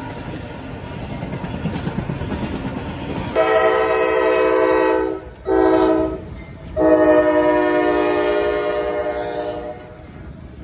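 Locomotive multi-chime air horn sounding three blasts, long, short, then long, over the low rumble of a train on the rails.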